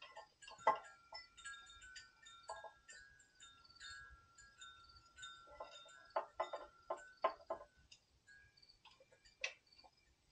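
Light metallic clicks and clinks of pliers working the small engine's carburetor and governor linkage, a quick run of them about six seconds in, over faint ringing, chime-like tones.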